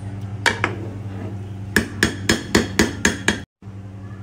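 Metal spoon knocked against the rim of a nonstick cooking pot: two knocks, then a quick run of about seven sharp taps, roughly four a second. A steady low hum runs underneath.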